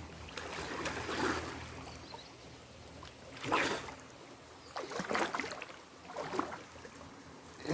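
Water sloshing and splashing as a man swims and wades chest-deep through a shallow river, in four or five separate splashes a second or two apart over the low hiss of moving water.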